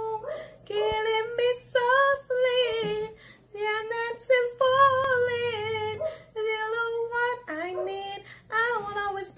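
A single voice singing a melody in short phrases of long held notes with vibrato, with brief pauses between phrases and no clear accompaniment.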